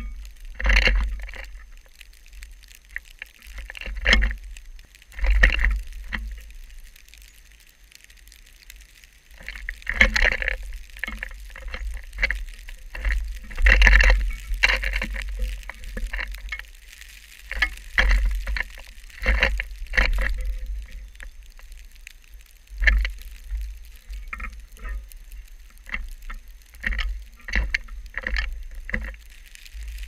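Blizzard wind gusting against a GoPro housing: a low rumble that swells and fades every few seconds. Scattered sharp taps and knocks run through it, from blue jays landing and pecking at seed on the wooden feeder tray that the camera is fixed to.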